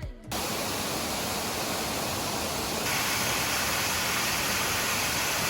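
Small waterfall rushing steadily. About three seconds in it becomes a little louder and brighter.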